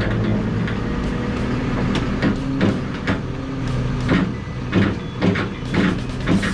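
Heavy vehicle engine running steadily, with repeated short knocks and clanks over it.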